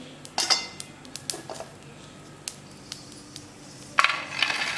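Metal utensil clinking and scraping against a kadai as dry-roasted spices are tipped out into another vessel, with scattered taps early on and a longer, denser scrape near the end.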